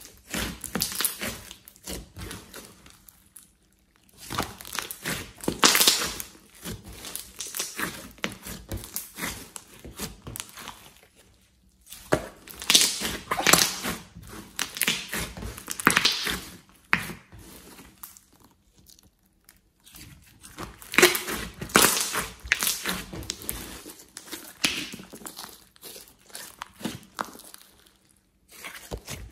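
Glossy slime being squeezed, kneaded and stretched by hand: wet, sticky crackling and popping clicks in runs of several seconds, with brief pauses between them.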